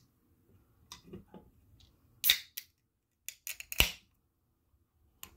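Ring-pull on an aluminium can of carbonated energy drink cracked open: a sharp pop with a short fizz of gas about two seconds in, followed by a few clicks and a sharp knock a second and a half later.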